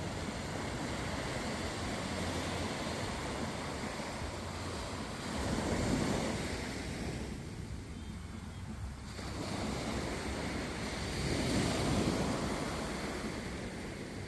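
Ocean waves washing in, swelling louder twice, about six seconds apart, over a low wind rumble on the microphone.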